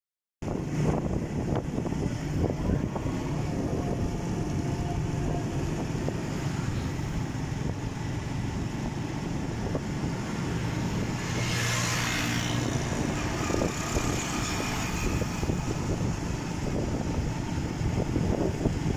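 Small Honda motorcycle engine running steadily while riding, with road and wind noise. There is a short rush of hiss about twelve seconds in.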